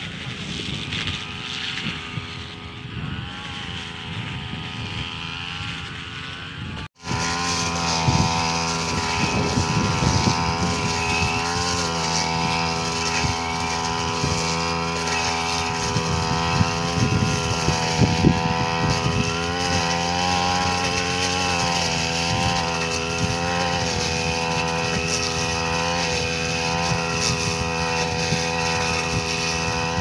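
Brush cutter engine running steadily as it cuts rice stalks, its pitch wavering slightly up and down. About seven seconds in it turns suddenly from faint to much louder and closer.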